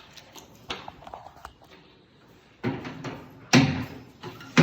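A few light clicks, then two loud clunks about a second apart, each ringing on briefly: old electrical fittings being handled.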